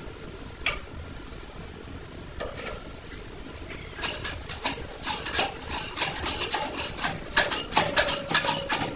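Metal parts or hand tools clicking and clinking, a few single clicks at first, then a rapid, irregular run of sharp clicks from about four seconds in.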